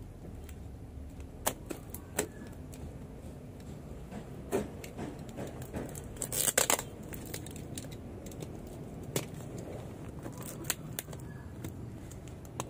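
Utility knife cutting through packing tape and cardboard, then the cardboard end of the parcel being pulled and torn open: scattered clicks and scrapes, with the loudest rip about six and a half seconds in.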